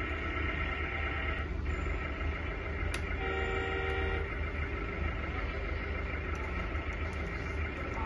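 Steady low hum under sustained electronic tones: a chord-like tone for the first second and a half, and another about three seconds in lasting about a second.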